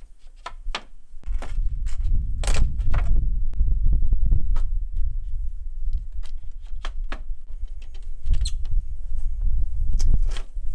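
Wooden sawhorses and rails being set up and handled: irregular knocks, clunks and clatters of wood on wood, over a steady low rumble.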